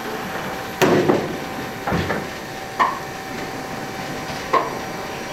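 Steam locomotive turning on a depot turntable: four loud metallic knocks and clanks at uneven intervals, roughly one a second, the first the loudest, over a steady background hum.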